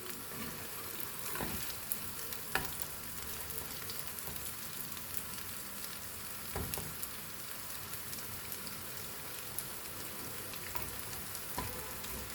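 Breaded brinjal slices shallow-frying in coconut oil in a frying pan, a steady sizzle, with a few sharp knocks of a utensil against the pan.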